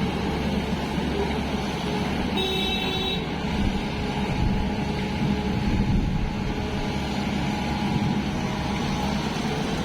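Tata Hitachi EX 215 excavator's diesel engine running steadily as the machine works, a heavy rumble, with a brief high-pitched tone about two and a half seconds in.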